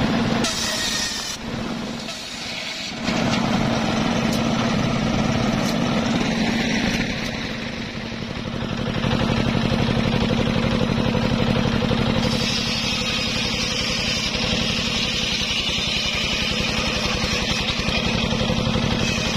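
Engine-driven home-built circular sawmill running steadily, its big blade cutting through mahogany: a constant engine drone with the hiss of the blade in the wood over it, the hiss growing brighter from about twelve seconds in.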